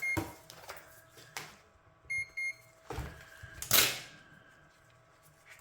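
Multimeter continuity beeper sounding: a brief high beep at the start, then two short beeps close together about two seconds in. Light clicks and knocks around them, and a louder clatter just before four seconds.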